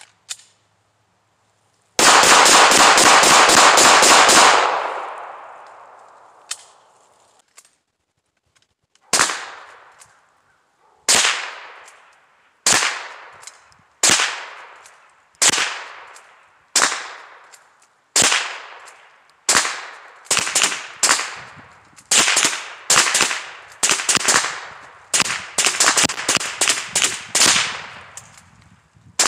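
Gunfire from two shooters. A fast string of shots fired in quick succession comes about two seconds in, then single shots follow roughly every second and a half, coming closer together and overlapping after the middle as both fire. Each shot is followed by a short echo.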